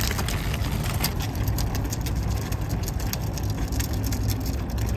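A loaded folding wagon rolling and rattling over a concrete walkway, with footsteps: many small irregular clicks and knocks over a steady low rumble.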